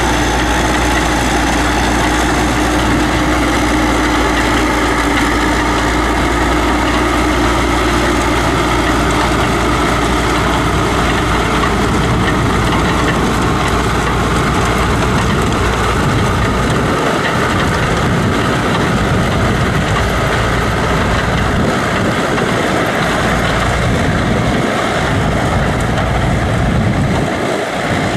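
Tracked rice-paddy tractor's engine running steadily under load as it works a flooded field. Its low rumble thins out in patches over the last ten seconds or so as the tractor moves off.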